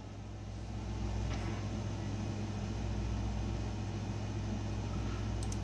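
Steady low machine hum with an even rushing noise, growing slightly louder about a second in, and two faint ticks near the end.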